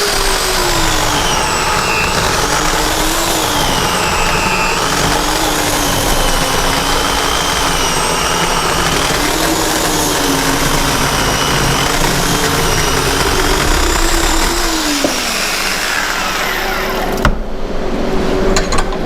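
Portland 14-inch 9-amp electric chainsaw cutting through a log of harder wood, which the user takes for pine. The motor's pitch sags and wavers as the chain loads up in the cut, then the saw stops about two seconds before the end.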